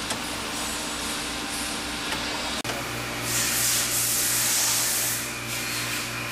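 Catheter printing machine running with a steady mechanical hum, and a louder burst of air hiss from about three seconds in that lasts about two seconds.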